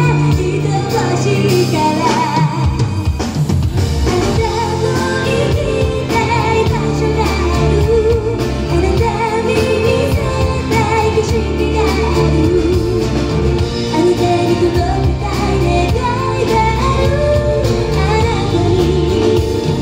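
Live band performance of a pop song: a woman sings the lead while strumming an acoustic guitar, backed by bass, electric guitar, keyboards and drums.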